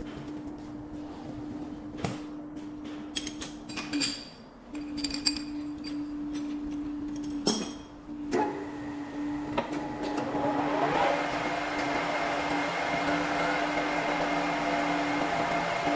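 A few sharp metal clinks and knocks as a rod is fitted and clamped in a metal lathe's three-jaw chuck. About eight seconds in, the lathe spindle starts and then runs steadily, its noise rising and holding.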